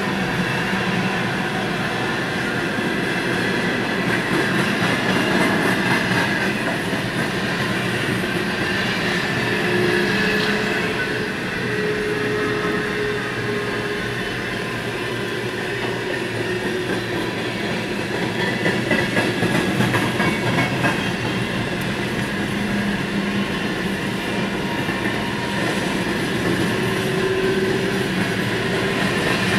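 Train of empty coal hopper cars rolling past: a steady rolling noise of steel wheels on rail, with a faint squeal now and then, heard from inside a car.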